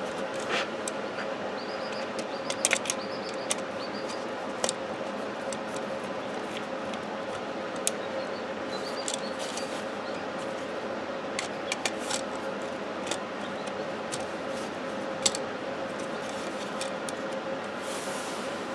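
Scattered small clicks and taps of stiff wires and a screwdriver being worked onto a wall outlet's terminals, over a steady hum.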